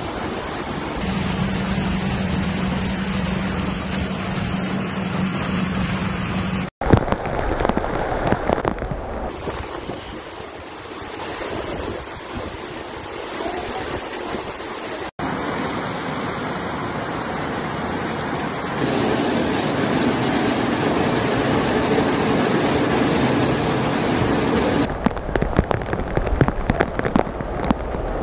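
Floodwater rushing through a street with rain, a steady hiss of water and wind on the microphone, in several short clips that cut abruptly from one to the next. A low steady hum runs under the first clip, and the last few seconds are gusty.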